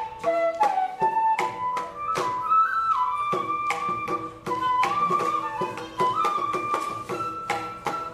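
Carnatic bamboo flute playing a melody with sliding, ornamented notes, over the plucked veena and the strokes of a mridangam.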